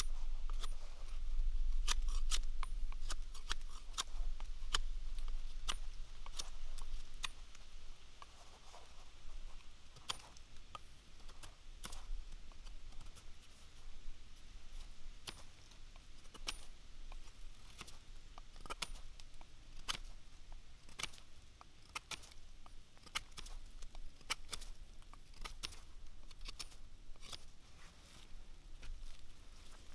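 Large knife whittling a peeled wooden stick: irregular crisp clicks and scrapes as the blade takes off shavings. A low rumble is loudest during the first several seconds.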